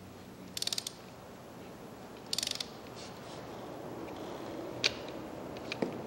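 Half-inch drive ratchet on a torque multiplier clicking in two quick runs about two seconds apart, as it is swung back between pulls while loosening a heavy truck's lug nuts. Two single metal clicks follow near the end.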